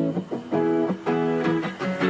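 Background music: pitched chords played in a steady rhythm, about two a second.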